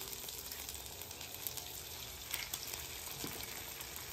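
Butter and a freshly cracked egg sizzling gently on a flat-top griddle turned down to about 277 °F for eggs, with a few faint pops. The soft, unburnt bubbling of the butter is the sign of a good low egg-frying heat.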